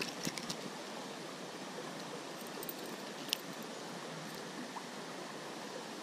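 Creek water running steadily, with a few light clicks near the start and one sharp tick a little past halfway.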